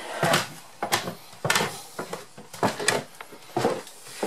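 Footsteps and handling knocks on the wooden steps and floor of a barge cabin: a series of irregular short thuds, about one or two a second.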